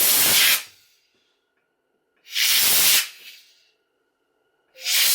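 Compressed air from an air compressor blow gun hissing in three short blasts as it clears the clogged oiler ports of a chainsaw bar.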